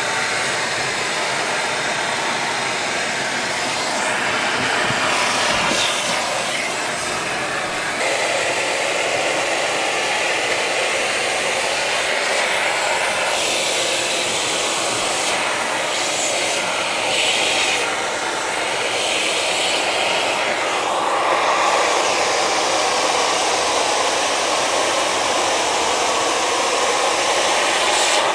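Vacuum cleaner running, sucking up soot and ash from a fireplace's firebox and convection channels. Its steady rushing sound changes in tone every few seconds as it works.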